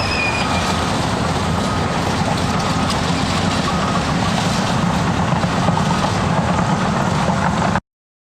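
Cat D6T bulldozer working: diesel engine running under steady load with the clatter of its steel tracks. The sound cuts off suddenly near the end.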